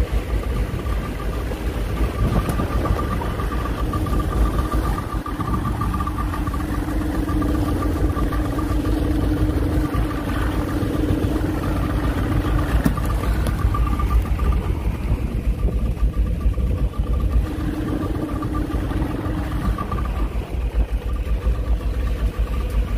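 Outboard motor of a small fishing boat running steadily under way, with a constant engine drone over water and hull noise.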